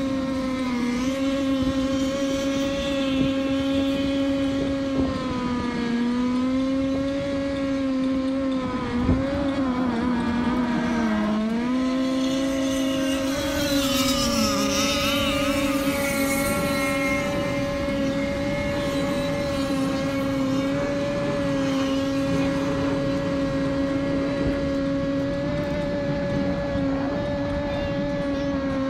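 Offshore racing powerboat engine running hard at a steady high pitch, dipping briefly in pitch a few times as the throttle comes off and back on. A single sharp knock about nine seconds in.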